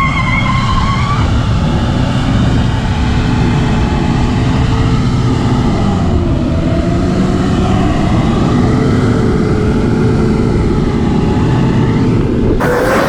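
A four-wheel-drive vehicle's engine running hard and steadily under load as it tries to drive out of soft sand, over a heavy low rumble. Its pitch wavers and dips about six seconds in. A louder rush of noise starts near the end.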